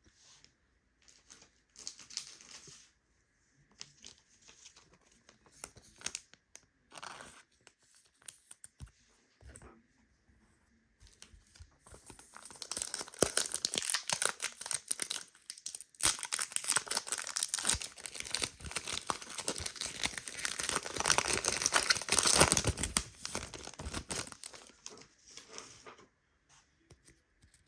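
Trading-card pack wrapper being torn open and crinkled by hand: scattered short rustles for the first several seconds, then dense, continuous crinkling and tearing from about 12 seconds in until near the end.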